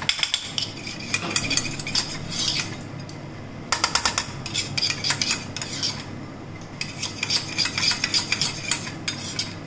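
A spoon stirring in a bowl, with irregular clinks and scrapes and quicker runs of clinking about four seconds in and again near the end, as tomato sauce is mixed into a sweet tamarind chutney.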